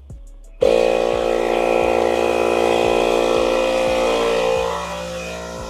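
Small portable air pump switching on suddenly and running steadily, inflating a low car tire; it gets somewhat quieter near the end.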